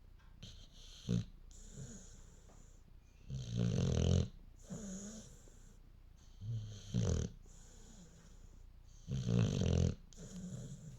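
Snoring: three loud snores about three seconds apart, about three and a half, six and a half and nine seconds in, each followed by a softer hissing breath out. There is a short snort about a second in.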